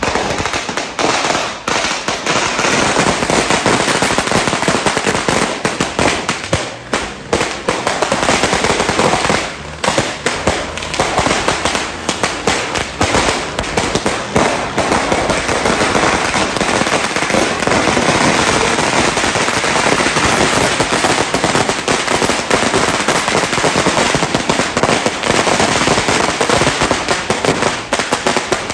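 Firecrackers going off in a dense, unbroken barrage of rapid bangs, many a second, without a pause.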